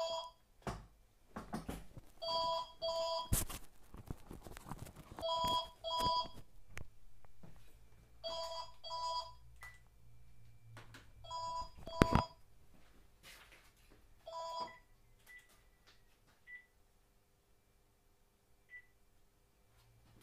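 Telephone ringing in double rings, two short bursts about half a second apart, repeating about every three seconds. It rings five or six times and stops about three quarters of the way through.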